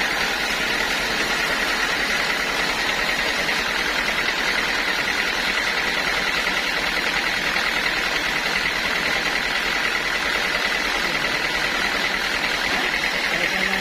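Band sawmill running steadily, with a constant high whine over a mechanical drone, as its blade saws through a teak log.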